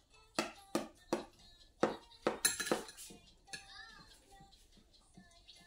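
Spoons and cutlery clinking and scraping against plates during a meal: a quick, uneven series of sharp clinks, thickest between about two and three seconds in.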